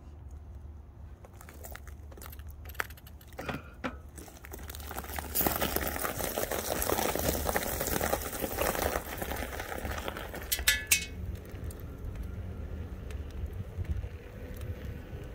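Riding noise from a moving e-bike: a steady low rumble, rising to a louder rushing stretch in the middle, with a few rattling clicks.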